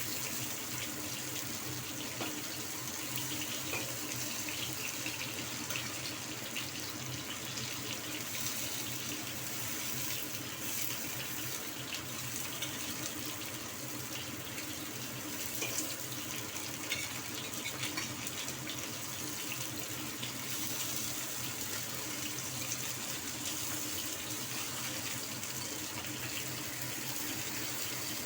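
Hot oil sizzling steadily in a wok as bell peppers stuffed with minced fish fry, with scattered small crackles.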